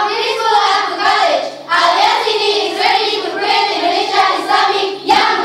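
A group of girls singing together in unison, in phrases with short breaks for breath.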